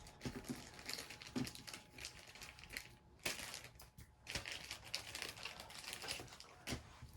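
Pokémon trading cards being handled and shuffled by hand: an irregular run of light clicks and rustles, with a few louder scrapes.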